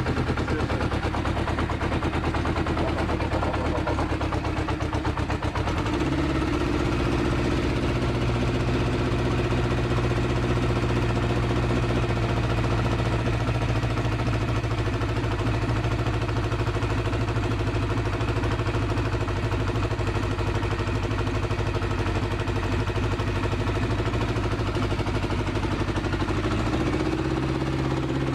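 1972 Honda CB500 Four's air-cooled inline-four engine running steadily with a deep, bassy exhaust note. The engine speed shifts about six seconds in and again near the end.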